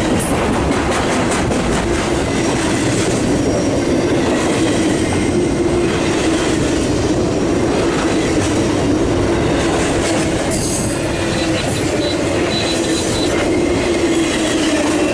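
Long freight train's cars rolling steadily past: a loud, continuous rumble and clatter of steel wheels on rail, with faint wheel squeal.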